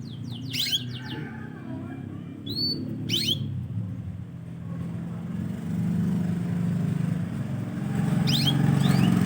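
A small bird chirping in three short groups of quick, falling high notes, over the low steady hum of a motor vehicle engine that grows louder from about halfway through.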